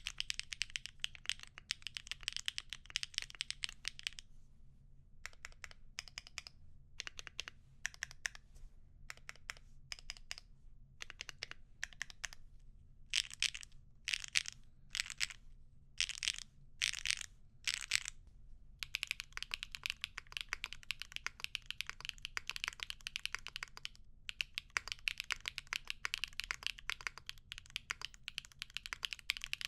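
Mechanical keyboard with HMX × Evoworks Amber linear switches being typed on. Fast steady typing on the polypropylene plate slows about four seconds in to scattered single key presses and short bursts. From about nineteen seconds, fast typing resumes on an aluminum plate.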